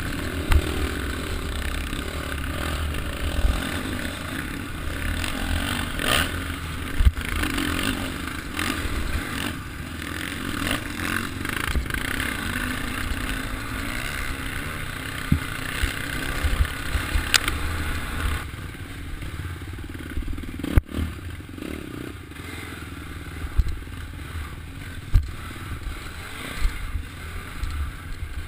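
Off-road dirt bike engine running under way over rough trail, heard from on board the bike, with frequent knocks and rattles from the bumps.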